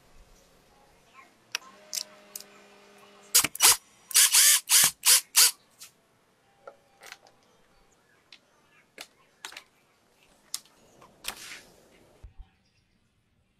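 Sharp clicks and knocks of PVC pipe and fittings being handled and fitted together, with a run of about half a dozen loud short bursts between three and five seconds in.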